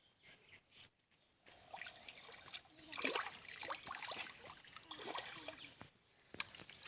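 Hands working in shallow muddy river water, with irregular splashing and trickling that starts about a second and a half in.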